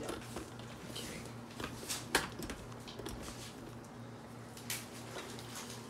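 Quiet room tone with a steady low hum and a few faint clicks and light knocks, the clearest one about two seconds in.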